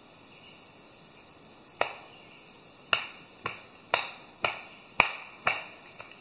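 Hatchet blows chopping the bark off a round of maple log. About seven sharp strikes start some two seconds in and come roughly two a second, with a fainter last tap near the end.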